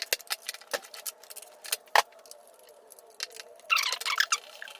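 Torx T30 driver working the small screws out of the motorcycle's reservoir bracket: scattered sharp metallic clicks and ticks, with a quick run of clicking a little under a second before the end.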